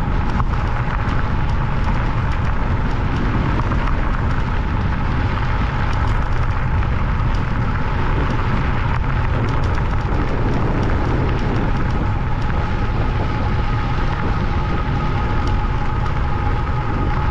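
Wind rumbling on the microphone while riding an electric bike over gravel, with small scattered crackles from the tyres and a faint steady whine.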